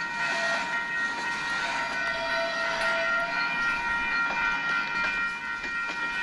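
Freight train cars rolling past: a steady wheel-on-rail rumble with several steady high-pitched tones running through it.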